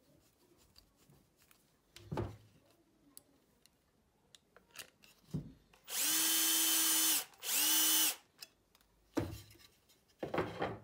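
Cordless drill running in two short steady bursts, the first a little over a second and the second under a second, driving a threaded brass capstan screw into a wooden piano key. A few wooden knocks and clicks of the key being handled come before and after.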